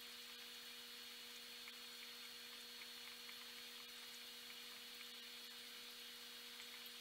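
Near silence: a faint, steady hum with a light hiss from the running aquarium equipment, with a few very faint ticks.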